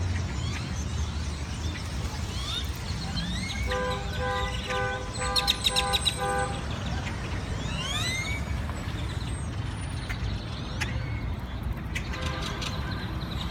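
Birds calling with many short rising chirps over a steady traffic rumble. About four seconds in, a vehicle horn sounds in a quick run of short toots for about three seconds, and briefly again more faintly near the end.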